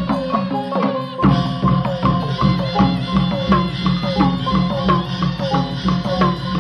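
Myanmar traditional ensemble music: quick runs of struck tuned percussion over drums. It grows fuller about a second in, when a steady drum beat comes in.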